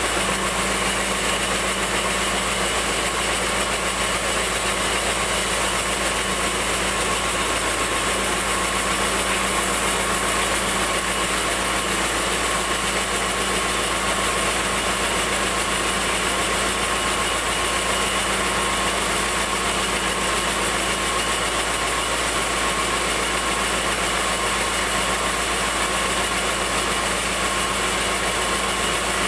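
Band sawmill running steadily: continuous machine noise with a constant hum that does not change or break.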